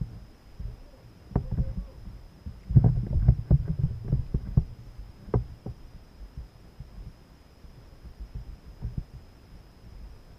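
Dull knocks and thumps against a kayak as a small fish is landed and handled, coming in a quick cluster a few seconds in, then thinning out.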